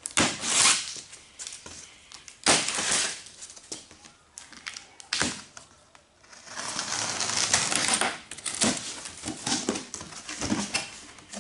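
Cardboard shipping box being cut open with a knife: short bursts of cutting and tearing as the plastic packing straps are cut, then a longer stretch of about three seconds as the packing tape along the top is slit, then rustling and scraping as the cardboard flaps are pulled open.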